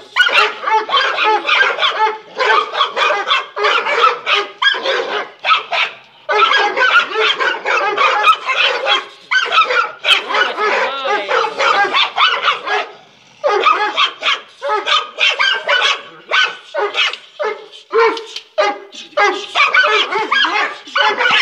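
Two dogs barking and yelping almost without pause as they wrestle, with a few short breaks.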